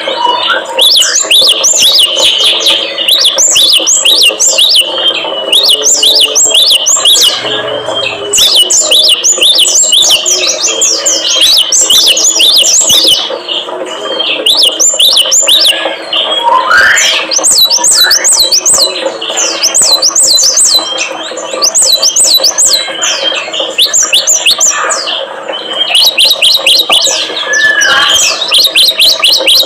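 Small songbirds chirping in fast, repeated high notes, several overlapping, over a steady low hum: a cage-bird lure track of the kind played to prompt captive birds such as great tits, prinias and white-eyes to sing.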